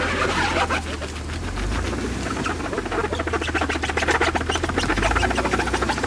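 Off-road Jeep crawling slowly over snow-covered logs and rocks: a steady low engine rumble under a dense, rapid crackle of snow and debris crunching.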